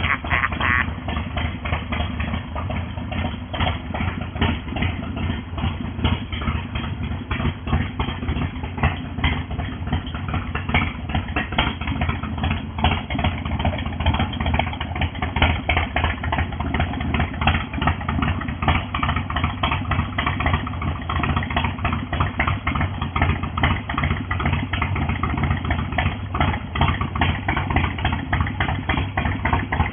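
1993 Harley-Davidson Heritage Softail's 1340 cc Evolution V-twin engine idling steadily, with a rapid, even beat of firing pulses.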